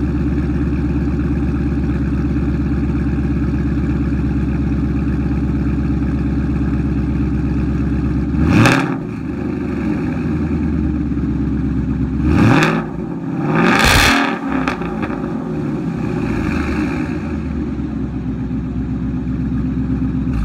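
Ford Mustang GT's 5.0 V8 through a Roush axle-back exhaust with resonator delete and H-pipe, idling steadily, then revved three times a few seconds apart about halfway through, each rev rising and dropping back to idle.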